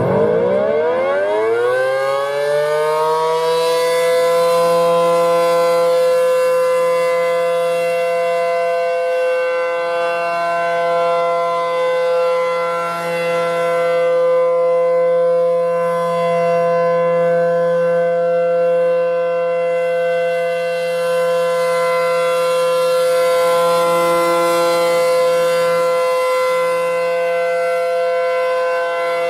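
Outdoor tornado warning siren winding up from a low pitch over the first few seconds, then holding a steady, loud tone with a rich stack of overtones that swells and fades slightly in loudness.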